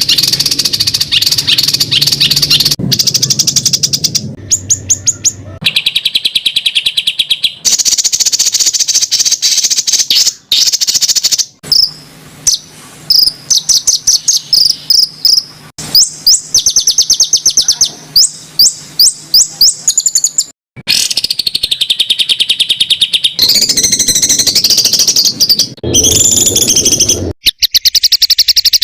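Spliced sequence of songbird call clips: harsh, rapid-fire chattering trills and fast repeated high notes ('tembakan kasar'), changing abruptly from one clip to the next every few seconds, with one lower, rougher burst near the end.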